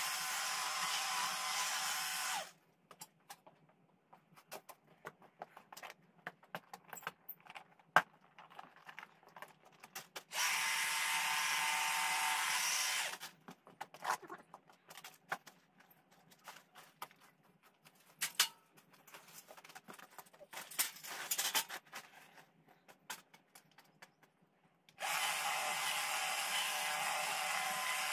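Hedge trimmer running in three bursts: about two seconds at the start, about three seconds in the middle, and again near the end, cutting the top of a hedge. Scattered clicks and knocks come between the bursts.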